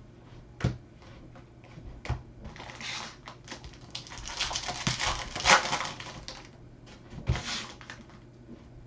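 A trading-card pack wrapper crinkling and tearing open in several bursts, loudest about halfway through, with a few sharp taps of the cards being handled.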